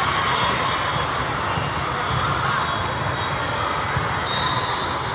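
Busy volleyball tournament hall: a steady hubbub of crowd chatter from many courts with scattered ball hits echoing in the large room, and a brief high steady tone about four seconds in.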